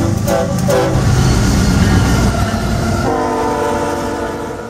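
Diesel freight train running past with a low rumble while the locomotive's air horn sounds two short blasts near the start, then a long multi-tone blast from about three seconds in, fading out at the end.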